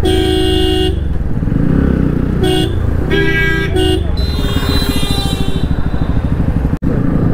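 Vehicle horns honking several times, the first honk about a second long, over a Bajaj Pulsar motorcycle's single-cylinder engine running steadily through an aftermarket Akrapovic exhaust while riding.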